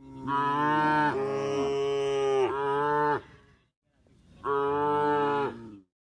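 Cows mooing: one long call of about three seconds that shifts pitch partway through, then a second, shorter moo about four and a half seconds in.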